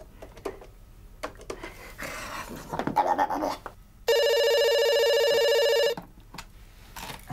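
A telephone ringing: one steady electronic ring of nearly two seconds, starting about four seconds in and stopping abruptly. A few faint clicks come before it.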